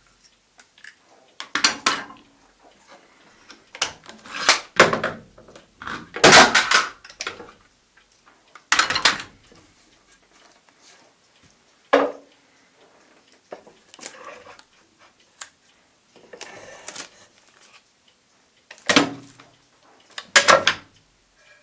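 Irregular knocks, clatter and scraping of wooden and metal pieces being handled on a workbench as a dried glue-up is freed and checked.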